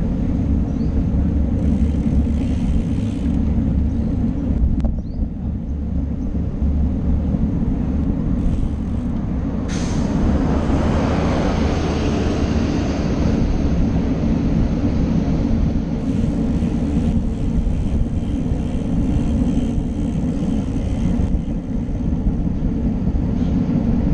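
Wind rushing over an action camera's microphone on a moving road bike, with tyre and road noise. About ten seconds in a sudden louder hiss starts and fades over a few seconds.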